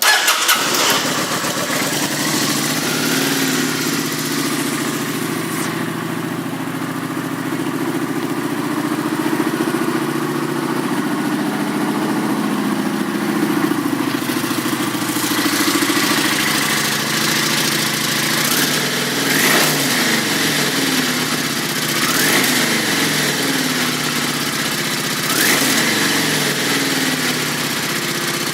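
2009 Kawasaki Vulcan 900 Classic's fuel-injected V-twin engine starting, then idling steadily. In the second half the throttle is blipped a few times, each a short rise in revs that falls back to idle.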